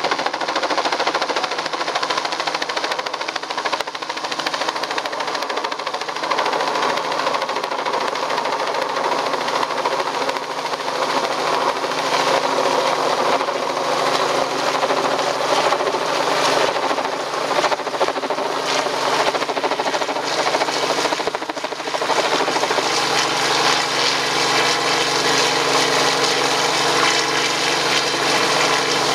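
Robinson R44 helicopter running steadily in a hover close overhead, its rotor and piston engine making a loud, continuous rhythmic beat.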